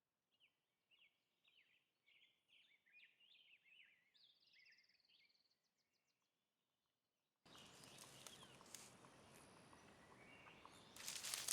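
Faint songbirds chirping and singing for the first few seconds. About halfway through, a steady outdoor hiss cuts in abruptly, with sharp crackles and rustles getting louder near the end.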